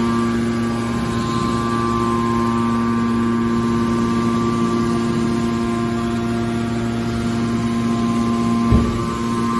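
Scrap aluminum hydraulic baler's pump and electric motor running with a steady hum, with one short knock near the end.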